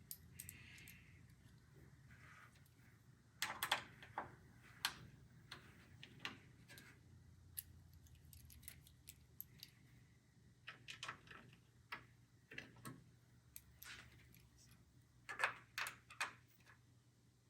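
Faint, irregular clicks and small metallic taps from a screwdriver working small motherboard screws into the case standoffs, coming in a few short clusters.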